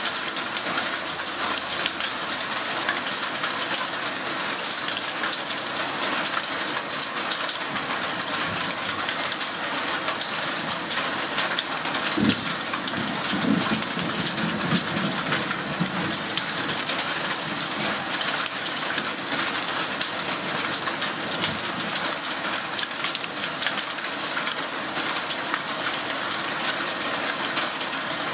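Heavy rain pouring down on foliage and open ground, a dense steady hiss of countless drops. About twelve seconds in, a sharp knock is followed by a low rumble lasting a few seconds.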